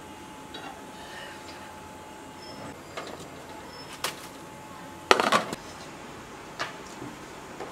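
A few clinks and knocks of kitchen utensils and dishes. The loudest is a short clatter about five seconds in.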